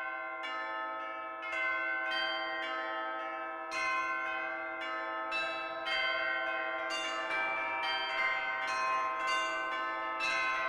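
Church bells struck one after another at different pitches, about one strike a second, each ringing on so the tones overlap.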